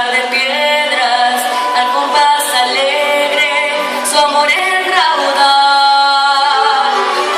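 A young girl singing solo, holding long notes that waver in pitch and slide between them, with faint ticks about once a second behind her.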